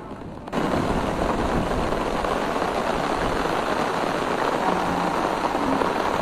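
Heavy rain pouring down in a steady hiss, starting suddenly about half a second in.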